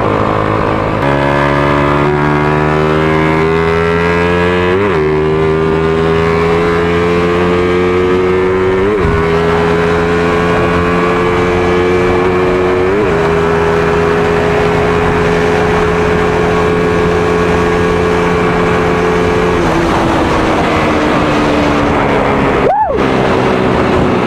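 Suzuki Raider R150 Fi motorcycle's single-cylinder engine pulling hard at full throttle, its pitch climbing with a brief break at each gear change. It then holds a steady high note at high speed, and the pitch falls near the end as the throttle eases off.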